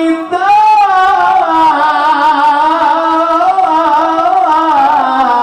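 A male qari's high-pitched Qur'an recitation in the melodic tilawah style: one long held note drawn out with wavering, ornamented pitch.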